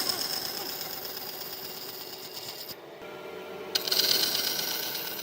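A power tool working wood in two bursts of about three seconds each, with a fast buzzing rattle and a short pause between them.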